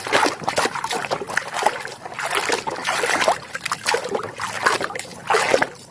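Water splashing and trickling in irregular bursts as a muddy plastic toy animal is washed clean.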